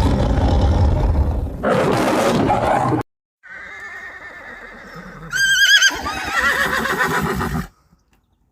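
A loud, rough animal roar that cuts off abruptly about three seconds in, followed by a horse whinnying: a high call with a quavering, trembling pitch, loudest about five and a half seconds in.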